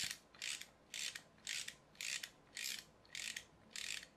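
Clockwork mechanism of a Marvin the Martian Happy Meal toy making a regular series of short ratcheting rasps, about two a second.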